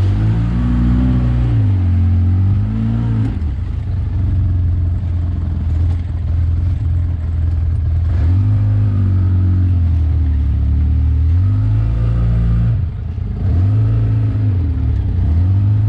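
Side-by-side UTV engine running under throttle over a muddy trail, its pitch rising and falling every few seconds as the throttle is worked on and off.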